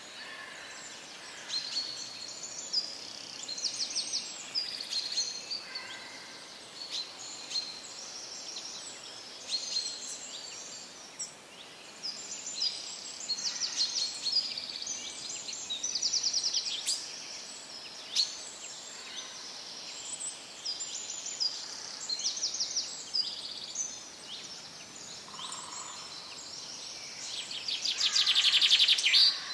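Small songbirds chirping and twittering continuously, with short quick trills, over steady outdoor background noise. A louder rapid rattling burst comes near the end.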